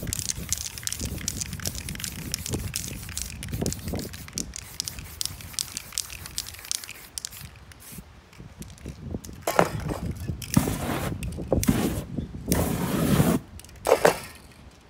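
Aerosol spray paint can hissing in several bursts of about half a second to a second each, spraying black paint over a paper stencil on canvas. Before that come small clicks and rustling of hands pressing the stencil flat, and a short burst near the end as the paint on the canvas catches fire.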